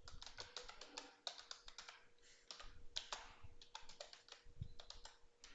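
Typing on a computer keyboard: a fast, irregular run of faint key clicks with short pauses, as a terminal command is entered.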